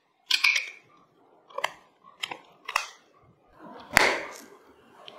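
Close-miked handling of the OPPO Find N2 Flip folding phone and its packaging during an unboxing: a series of crisp clicks and taps, with a louder thud and a short rustle about four seconds in.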